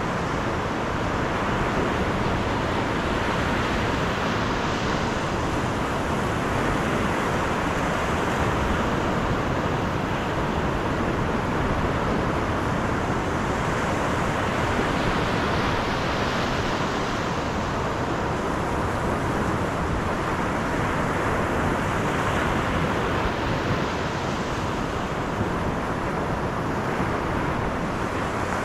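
Steady road noise of a car driving, a constant rush of tyres and wind with no change in pace.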